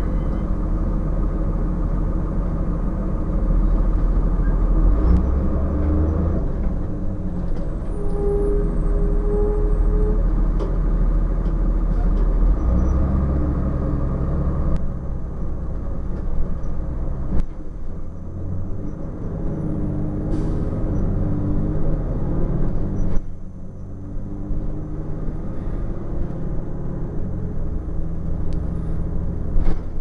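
The Cummins ISC straight-six diesel of a 2002 Blue Bird CS bus, heard from inside the passenger cabin as it runs. Its note steps up and down several times, with a few sharp clicks and rattles. The engine sound drops off suddenly about 23 seconds in.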